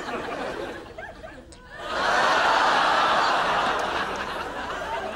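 Studio audience laughing: a burst of laughter breaks out about two seconds in, swells, then dies away to scattered chuckles.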